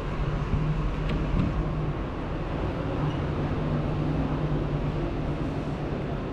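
Street traffic: a motor vehicle's engine running with a steady low hum over general city street noise.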